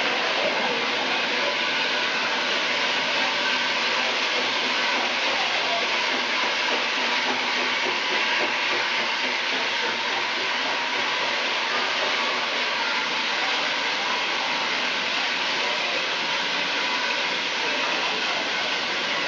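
Steady hiss of steam from a saddle-tank steam locomotive standing at the platform, with railway noise around it.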